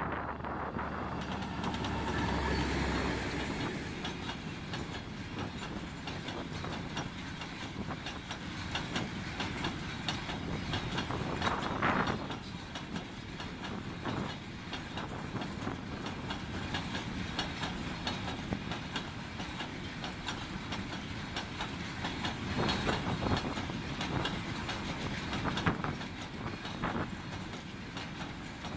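A pair of MÁV M62 "Szergej" diesel locomotives, with two-stroke V12 engines, runs past at the start, their engines loudest in the first few seconds. A long rake of double-deck car-transporter wagons then rolls by, its wheels clattering over the rail joints, with a few louder clacks along the way.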